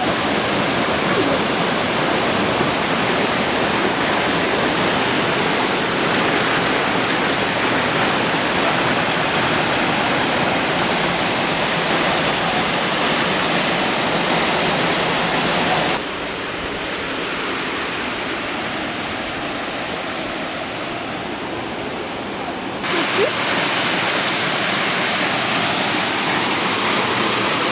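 Rushing water, a steady even roar like a waterfall or fast stream. Partway through it turns duller and slightly quieter for several seconds, then returns to full strength.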